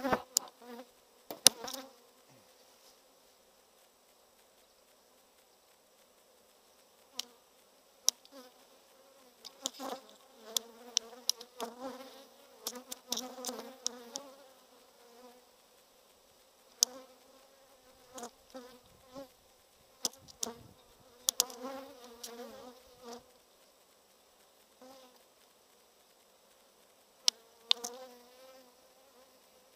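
Honeybees buzzing close by, their hum swelling and fading in clusters as they fly around the open hive. The colony is irritable in the wind. Sharp clicks and knocks of wooden hive frames being lifted and pried with a hive tool come in between, the loudest about a second and a half in.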